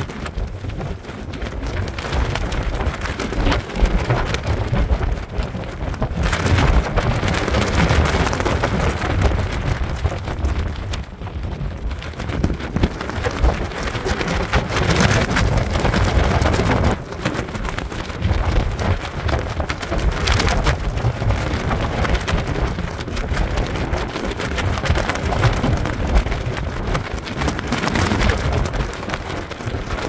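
Very high wind gusting hard, buffeting the microphone with a loud rumbling roar that rises and falls from gust to gust.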